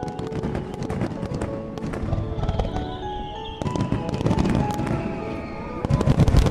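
Fireworks crackling with many sharp pops, a falling whistle about two seconds in, and heavier, louder bursts near the end, with music playing alongside.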